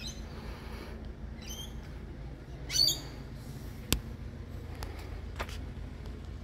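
A bird gives a short, loud squawk about three seconds in, with fainter chirps a little before it, over a steady low background rumble. A single sharp click follows about a second later.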